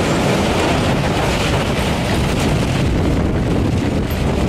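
Mine-train style roller coaster running along its steel track, heard from a car: a steady loud rumble and rattle of the train, mixed with wind buffeting the microphone.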